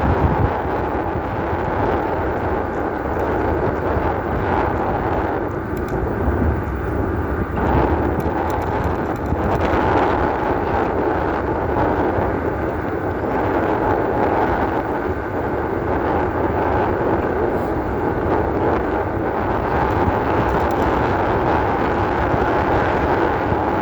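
Off-road e-bike in motion: a steady motor hum over rumbling wind and tyre noise.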